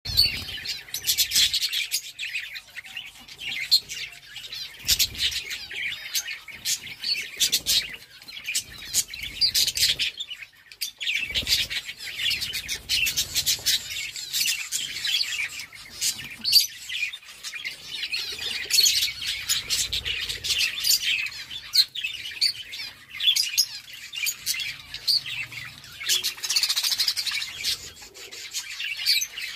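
A flock of budgerigars chirping and chattering without pause while feeding, with many sharp clicks mixed in.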